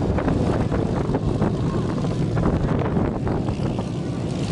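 Avro Lancaster's four Merlin V12 piston engines running steadily as the bomber taxis, with wind noise on the microphone.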